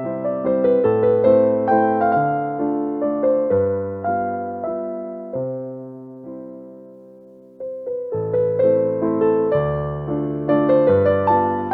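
Background music: electric piano playing chords and a melody of struck, decaying notes. It thins out and fades a little past the middle, then comes back in suddenly with a fresh chord.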